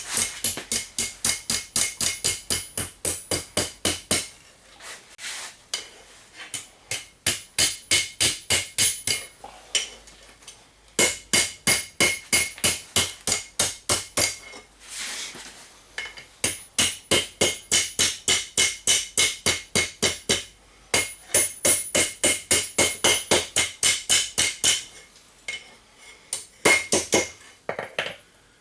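Blacksmith's hammer striking hot horseshoe steel on an anvil, in quick runs of about four blows a second with short pauses between runs, the anvil ringing with each blow as the hook is forged.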